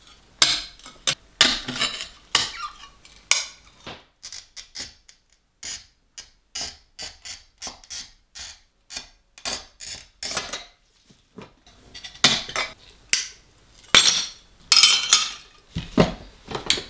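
Stained glass being cut and handled by hand: an irregular run of short scratchy clicks, crunches and clinks of glass on a work surface, with a cluster of longer, louder scrapes near the end.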